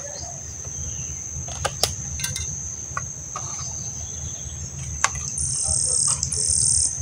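Insects trilling: a steady high-pitched drone runs throughout, and a louder, harsher buzz swells twice near the end. A few sharp clicks and knocks are heard over a low steady rumble.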